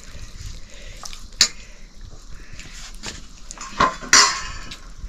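Metal spoon clinking and scraping on a plate of noodles: a few sharp clinks, with a louder scrape a little after four seconds in.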